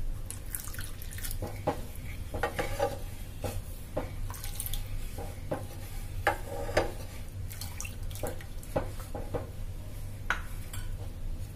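Wooden spatula stirring milk in a metal pan, with irregular scrapes and knocks against the pan and liquid sloshing as dissolved custard powder is poured slowly into the hot milk. A steady low hum runs underneath.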